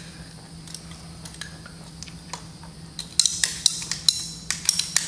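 Small metal tools and fittings clicking and clinking as they are handled, light and sparse at first, then a quick run of sharp, ringing clinks from about three seconds in.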